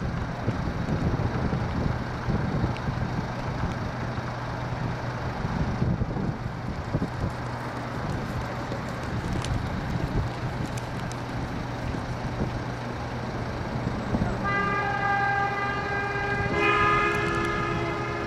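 Strong wind buffeting the microphone over a steady low engine hum. About three-quarters through, held pitched tones come in and step to a new pitch a couple of times.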